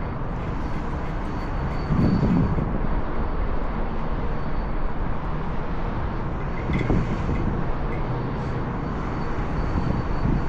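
Steady rumbling noise with three dull thumps, about two, seven and ten seconds in: a crescent wrench used as a hammer, tapping on the condenser fan assembly.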